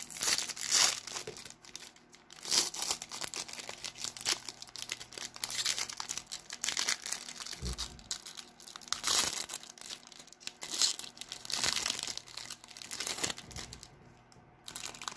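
Foil wrapper of a trading-card pack crinkling and tearing as it is peeled open by hand, in a series of rustling stretches, with a short lull near the end.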